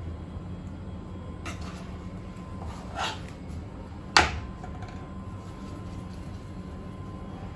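Steady low hum with a couple of brief rustling handling sounds and one sharp knock about four seconds in.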